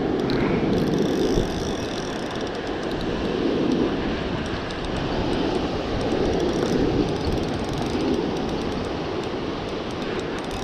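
Surf washing over rocks: a steady rush that rises and falls in slow swells every couple of seconds. Faint, fast ticking from a spinning reel being wound runs under it.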